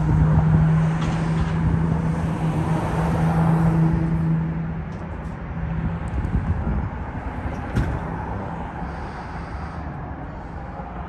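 Road traffic: a vehicle engine hums steadily for the first four to five seconds, then fades, leaving a general traffic rumble. A single sharp click comes about eight seconds in.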